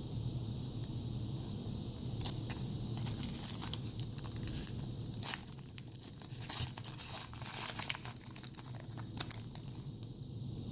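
A trading-card pack's wrapper being torn open and crinkled by hand, in irregular crackling tears and rustles from about two seconds in until near the end, loudest in the middle.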